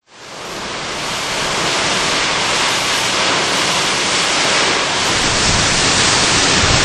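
Hurricane wind and driving rain rushing steadily, fading in at the start. Wind starts buffeting the microphone with a low rumble from about five and a half seconds in.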